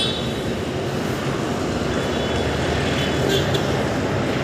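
Steady vehicle noise, an even din with no clear pitch, with a few faint clicks about three seconds in.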